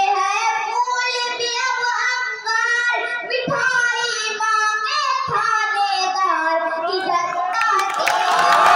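A boy singing a song solo through a headset microphone and PA, with long held phrases and no instruments. Near the end, noise from the audience rises under his voice.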